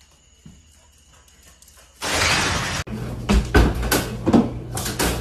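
A loud noisy crash lasting under a second, about two seconds in. Then a cat jumps at a wooden front door and hangs on its handle, giving repeated irregular thumps and rattles.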